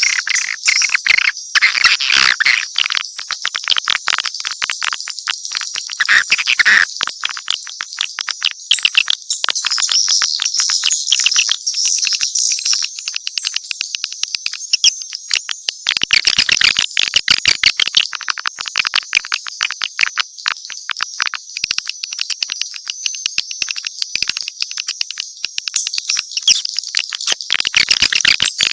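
Recorded swiftlet calls: many birds twittering and clicking rapidly in a dense, unbroken chorus of high chirps. This is a mixed swiftlet call track of the kind played to lure swiftlets into a nesting house.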